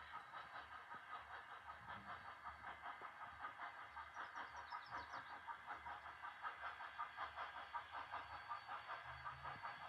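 Distant steam locomotive No. 488 working toward the listener, its exhaust chuffing faintly in a quick, even beat of about four chuffs a second.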